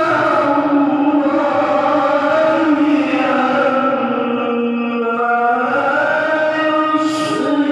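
A voice singing or chanting in long, drawn-out notes that slide and waver in pitch: vocal practice.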